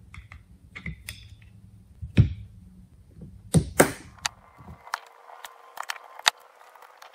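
Screwdriver working the small cover screws out of an outboard engine's mechanical fuel pump: scattered metal clicks and knocks, the loudest about two seconds in and again between three and four seconds in.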